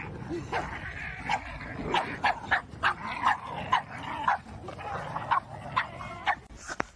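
A dog barking repeatedly, about a dozen short, sharp barks at an uneven pace.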